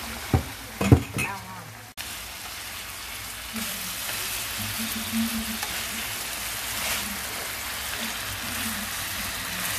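Chicken feet and chicken cartilage sizzling in oil in a nonstick wok, then being stir-fried with onion wedges in garlic-chili fish sauce. The sizzle gets a little louder a few seconds in. A few sharp knocks about a second in are the loudest sounds.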